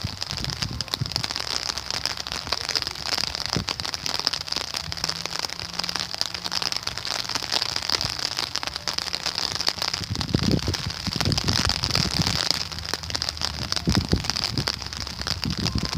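Rain falling, a dense, steady crackle of drops pattering close by. There is some low rumbling around ten to thirteen seconds in.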